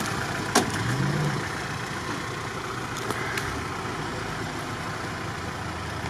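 Lada Niva's engine running at low speed as it crawls through a forest rut, with a brief rise in revs about a second in and a few sharp clicks over it.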